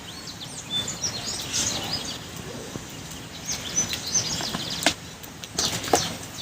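Small birds chirping and twittering over a steady outdoor background, with a few sharp clicks or knocks near the end.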